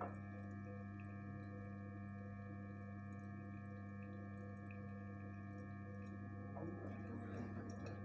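Gorenje 8 kg inverter washing machine giving a steady hum with a higher, even whine over it while washing; this tonal whine is the strange noise the owner hears from the one-year-old machine. A short swish of water comes near the end.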